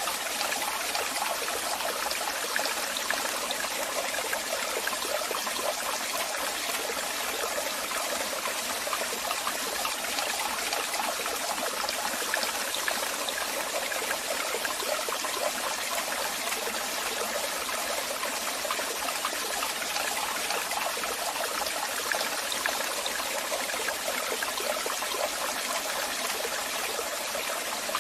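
Waterfall: water falling and splashing in a steady, unbroken rush, most of it in the middle and upper range with little deep rumble.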